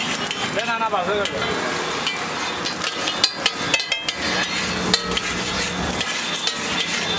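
Metal spatula tapping and scraping on a flat iron griddle as an egg omelette is worked, with a cluster of sharp clinks about three to four seconds in. Under it, a steady background of stall noise and a faint sizzle.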